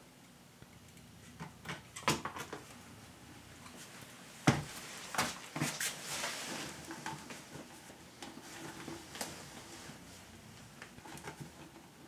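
Hands handling a vinyl shower pan liner and the metal drain bolts being pushed through it: scattered small clicks, taps and rustles, with one sharp knock about four and a half seconds in.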